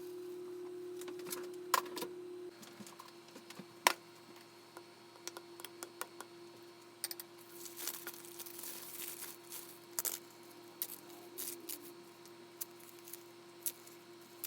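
Steady hum of a running microwave oven, which drops in level about two and a half seconds in. Scattered clicks and taps of dishes and utensils being handled run through it, with a short rustle near the middle.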